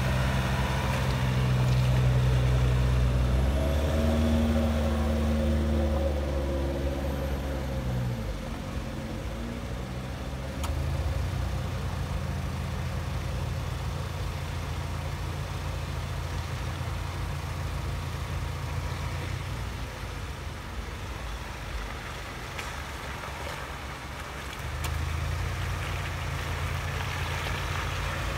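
Off-road SUV and pickup engines at low speed: a close engine runs and revs up with rising pitch, then fades after about eight seconds. Near the end, the 2.0-litre bi-turbo diesel of a Ford Ranger Raptor grows louder as the truck climbs the track close by.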